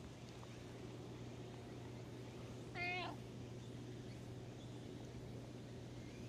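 A cat gives one short meow about three seconds in, over a steady low background hum.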